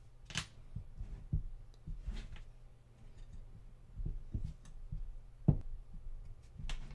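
Small metal clicks and knocks as an Allen key and screws are worked against a black anodized tailstock housing while a flange is screwed on, with light handling noise. The clicks come irregularly, the sharpest knock about five and a half seconds in, over a low steady hum.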